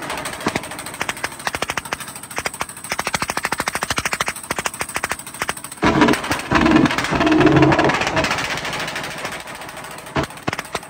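Honda CBR650's inline-four exhaust crackling and popping in rapid volleys on the overrun: afterfire from a remapped pops-and-bangs tune. The engine is revved hard about six seconds in, then the crackle trails off into a few scattered bangs near the end.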